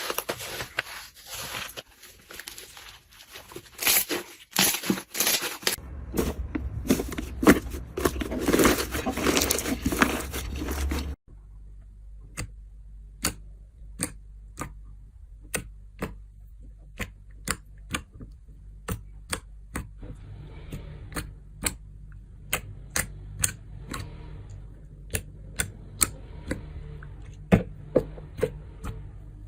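Slime being handled: dense crackling and crinkling for about eleven seconds. After a sudden cut, sharp clicks come roughly once a second over a low steady hum.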